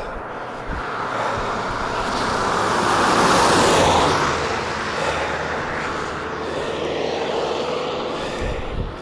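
A vehicle passing close by on a road; its engine and tyre noise swells to a peak about three to four seconds in, then fades.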